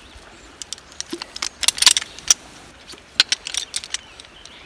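Aluminum legs of an Ascend Rest Light folding camp chair clinking against each other as they are folded together: scattered sharp metal clicks, busiest about two seconds in.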